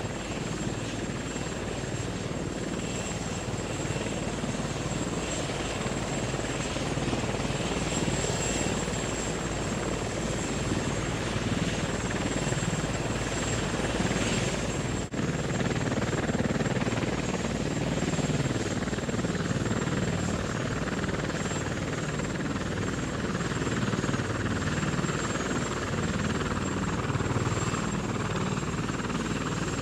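Steady droning flight noise of an aircraft, with no changes apart from a brief dropout about fifteen seconds in.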